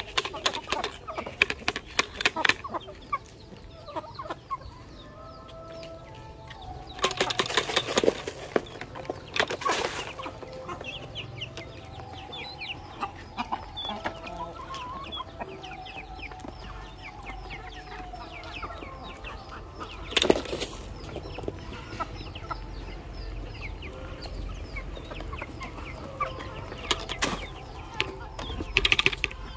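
Gamecocks pecking grain off a board and the ground, with many quick sharp taps, soft clucking and a few louder noisy bursts.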